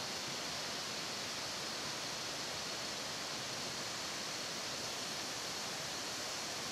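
Waterfall rushing in a steady, even hiss of falling water, with a thin steady high tone running through it.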